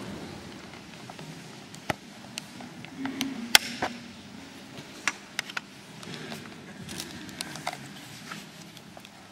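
The last of the applause fades out, then low room noise with scattered clicks and knocks from the audience and performers between pieces. The sharpest knock comes about three and a half seconds in.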